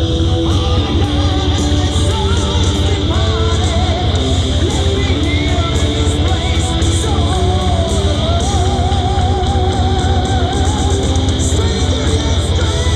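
Rock music with electric guitar and a singing voice that holds long notes with vibrato, over a strong, steady low rumble.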